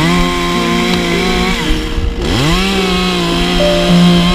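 Two-stroke top-handle chainsaw cutting into monkey puzzle wood at full throttle. The revs drop briefly about two seconds in, then climb straight back up.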